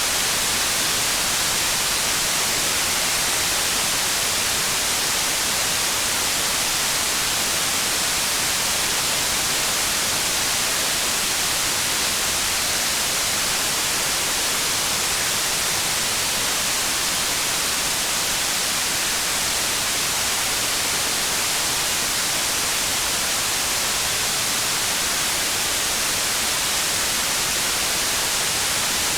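Steady, even hiss of heavy rain, with no separate drops standing out.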